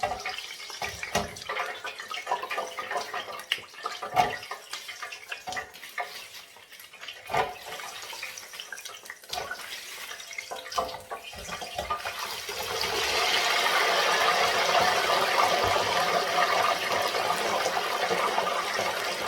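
Diced yam frying in hot oil in a pan. First come scattered knocks and clatters, then about twelve seconds in a steady, louder sizzle sets in.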